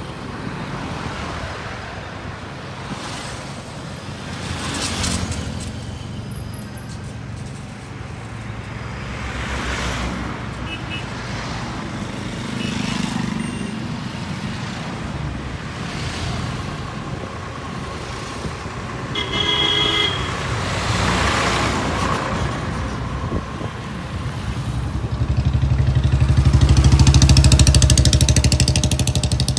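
A convoy of Preet combine harvesters going past one after another, their diesel engines and wheels swelling and fading with each pass. A horn sounds briefly about two-thirds of the way through, and the loudest, deepest engine passes near the end.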